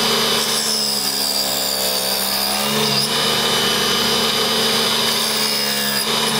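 Homemade mini table saw running: a DC 775 motor driving a small 60 mm circular blade through a timing belt, with a steady high whine. The tone shifts between about half a second and three seconds in as the blade cuts wood.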